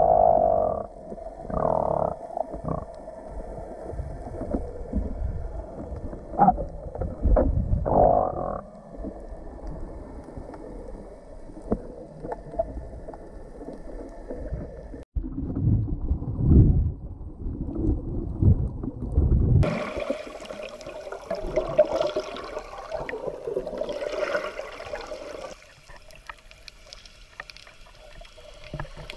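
Muffled underwater sound picked up by an action camera while snorkeling: irregular low rumbles and sloshing of water as the swimmer moves. After a brief dropout about halfway, the sound opens up into a brighter wash of water and bubbles.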